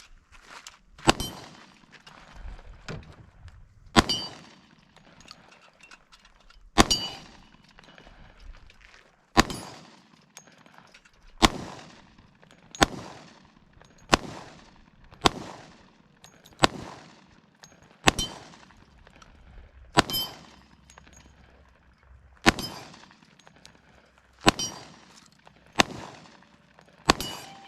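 A handgun firing a slow string of about fifteen shots, one every one to two and a half seconds. Each shot is a sharp crack followed by a short echoing tail.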